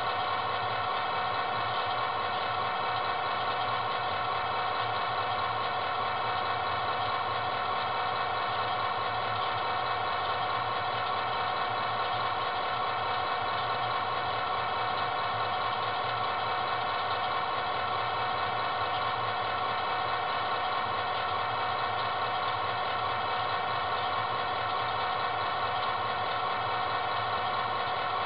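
HO-scale DCC-controlled 200-ton crane model running as its boom swings round: a steady hum made of several even tones that does not change.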